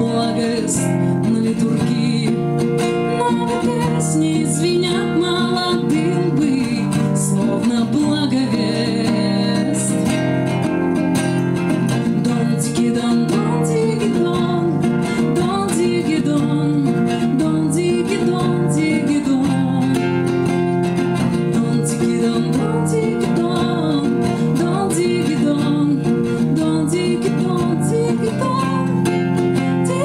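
A woman singing a Russian bard song to her own acoustic guitar accompaniment, the guitar played steadily under the vocal line throughout.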